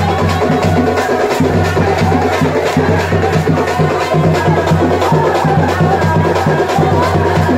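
Loud dance music with a steady percussion beat over a sustained low bass.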